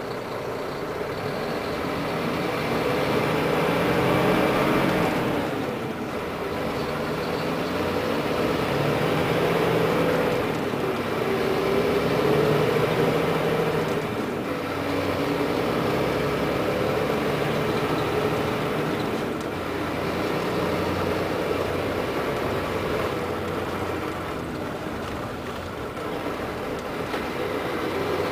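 Volvo B12R coach's rear-mounted diesel engine running under load, its note climbing and then dropping back several times.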